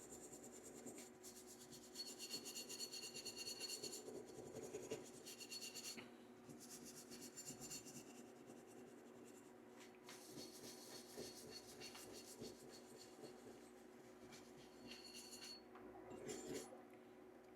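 Faint, scratchy scrubbing of a plastic-bristle brush on a Charles Daly 1911's steel slide, wet with CLP, in stretches of repeated strokes with brief pauses.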